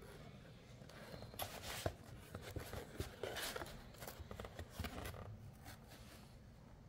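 Cardboard shipping box being handled: faint, irregular rustling and scraping of the lid and flaps, with a few light clicks and knocks.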